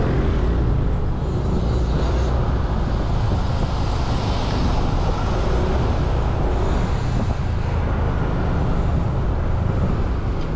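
Motorcycle engine running steadily while riding, with road and traffic noise.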